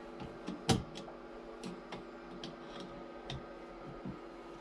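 Scattered light clicks and taps at uneven intervals, with one sharper knock about three-quarters of a second in, over a steady electrical hum from a running battery charger.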